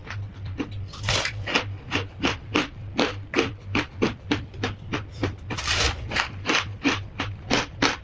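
Freezer frost being bitten and chewed: quick crunches, about three a second, with a longer crumbling rush about a second in and again near six seconds.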